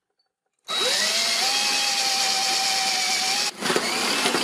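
Electric drill starting about half a second in, its motor rising to a steady pitch as a 10 mm bit bores into a copper pipe; it cuts out briefly near the end, then runs again.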